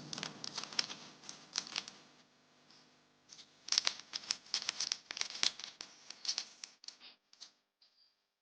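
Hands working fishing line and tackle while tying a fishing knot: irregular small crinkling and scratching clicks, busiest in the middle and thinning to a few faint ticks near the end.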